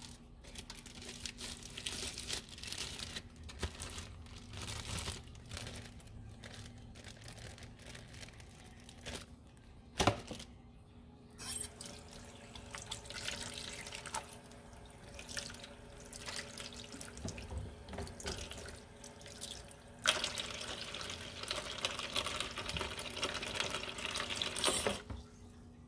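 Tap water running into a kitchen sink and over a piece of salmon being rinsed by hand, the flow breaking up and changing as the fish is moved under it. A sharp knock about ten seconds in; a steadier, louder stream begins about twenty seconds in and cuts off suddenly near the end.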